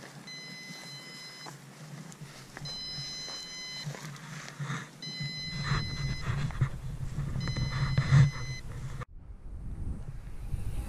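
JJRC X11 Scouter drone sounding four long, evenly spaced beeps, each about a second long, the warning that its battery is completely flat and it is landing automatically. A low rumble runs underneath, stronger in the second half.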